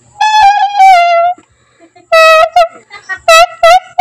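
Homemade turotot, a New Year's noisemaker horn, sounding loud honks on one reedy note: a long blast of about a second whose pitch sags slightly, then a string of short blasts.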